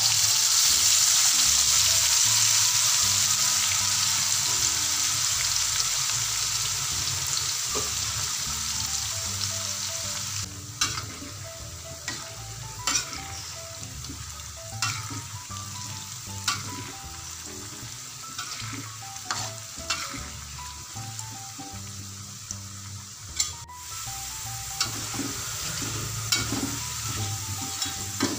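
Cut potatoes frying in hot oil in a wok: a loud sizzle that starts as they go in and slowly dies down. From about ten seconds in, the spatula clicks and scrapes against the wok as they are stirred, more often near the end.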